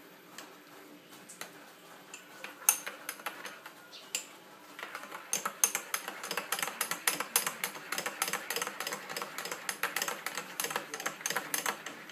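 Metal teaspoon stirring fast in a ceramic mug, clinking against its sides: a few scattered clinks at first, then rapid, continuous clinking from about five seconds in.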